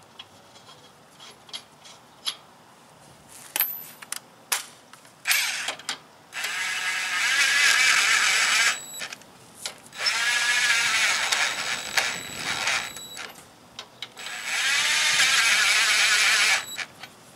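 Lug nuts and socket clicking as they are fitted by hand, then a cordless impact wrench running three times for two to three seconds each, driving the lug nuts on to secure the wheel.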